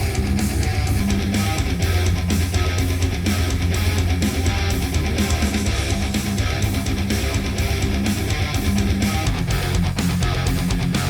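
Rock track with strummed guitar, heavy bass and a steady beat, played back through active speakers and picked up by microphones in the room.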